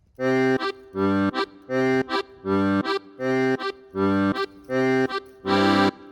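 Background music: a reedy instrument, accordion-like, playing a held chord followed by a short stab, repeating about every three quarters of a second in a bouncy rhythm.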